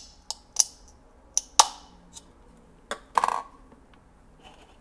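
Irregular sharp clicks and taps of eggshell and hard plastic: eggs being pricked on the pin under the egg maker's plastic measuring cup and set into its plastic egg tray. A short rattling clatter comes a little past three seconds in.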